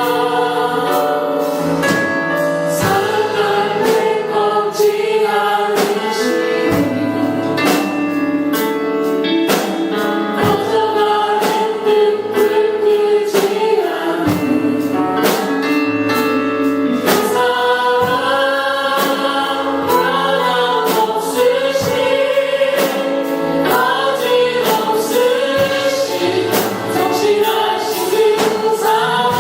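A choir singing a gospel praise song with instrumental accompaniment and a steady beat.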